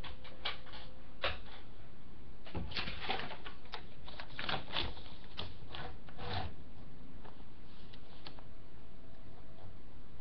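Sheets of paper being handled and shuffled on a desk: a run of crackles and light knocks, thickest over the first six seconds, thinning to a few soft clicks near the end.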